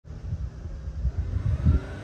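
Uneven low rumble of wind buffeting the microphone, gusting strongest near the end. The engine of an approaching 1997 Suzuki Carry mini truck becomes faintly audible underneath it.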